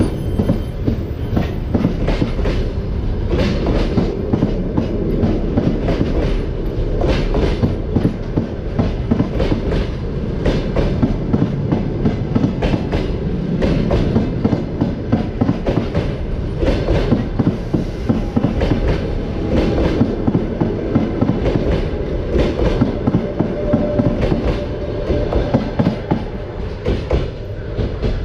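Passenger train rolling along the track, its wheels clacking over the rail joints in a continuous run of clicks over a steady low rumble.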